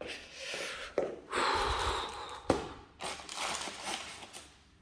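Rustling and handling noises with two sharp knocks, about a second in and again at two and a half seconds, as flat-pack desk parts are moved about.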